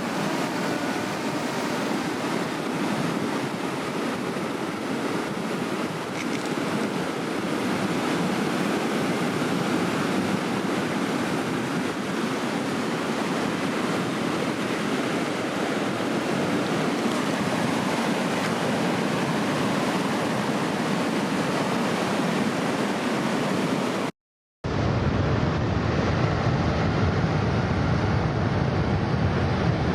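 Steady rushing of breaking ocean surf, with wind buffeting the microphone. About 24 seconds in the sound cuts out for a moment and returns as a duller, deeper rumble.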